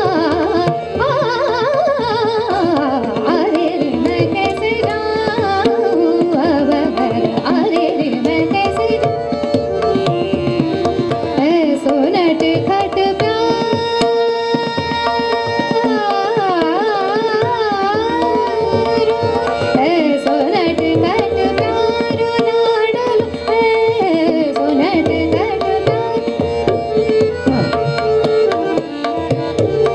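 Woman singing in Hindustani classical style, accompanied by tabla and harmonium. About 13 seconds in she holds a long steady note, then sings quick wavering ornaments, over the harmonium's sustained tone and continuous tabla strokes.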